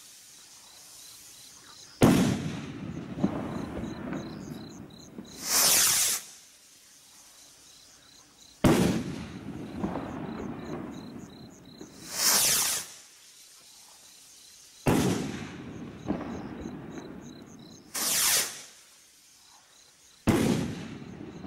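War Hawk firework rockets fired one after another. Each launch is a rushing whoosh of about a second as the rocket climbs, and about two and a half seconds later comes a sharp bang as it bursts, fading over a couple of seconds with light crackling. There are four bangs and three launches in all.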